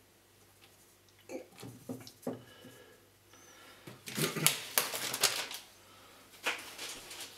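Raw bacon strips laid into a frying pan with a few soft slaps a little over a second in, then the plastic bacon packaging crinkling and rustling as it is handled, loudest from about four seconds in.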